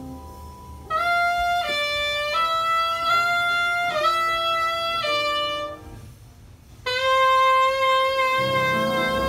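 Jazz saxophone playing a slow melodic phrase of held notes, a short pause, then one long sustained note near the end.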